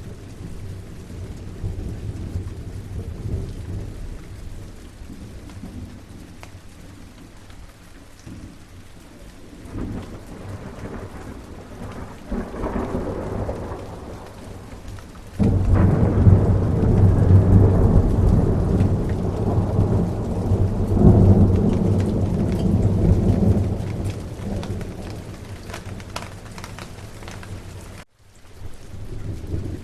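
Steady rain with thunder. A low rumble swells about ten seconds in, then a much louder roll of thunder starts suddenly around the middle and dies away over several seconds. The sound cuts out for a moment near the end.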